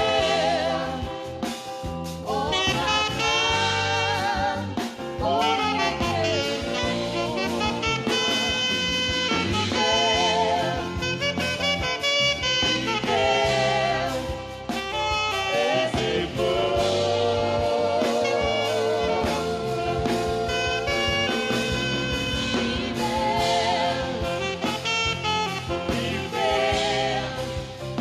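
Saxophone playing a slow worship melody with vibrato on its held notes, over a sustained backing track.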